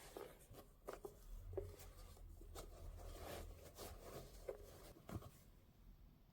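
Faint handling noises of sneakers and their packaging: soft rustling with scattered light taps and clicks, dying away near the end.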